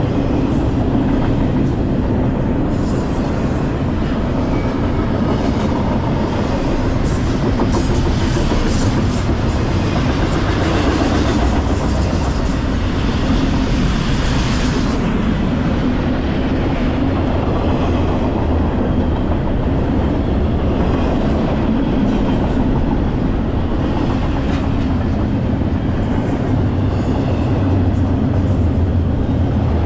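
Double-stack intermodal freight cars rolling past on the rails: a steady, loud rumble of steel wheels on track, with clicking and clatter in the first half.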